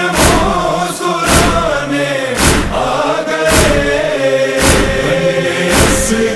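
Male chorus chanting the sustained refrain of an Urdu noha, held on long notes, over a heavy beat about once a second.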